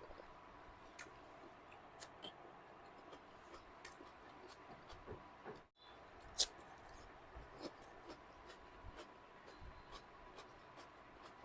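Close-miked eating sounds: scattered small clicks and smacks of chewing and mouth noise, with one sharper click a little past halfway. The sound cuts out for an instant just before that click.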